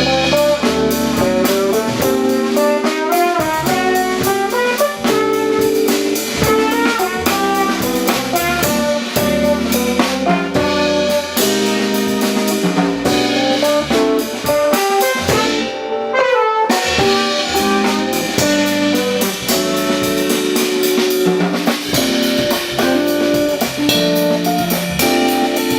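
Jazz band playing: a trumpet melody over electric guitar, keyboard with left-hand bass and a drum kit with cymbals.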